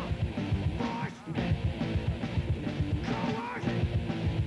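Rock music with a quick, steady drum beat and guitar, dipping briefly about a second in.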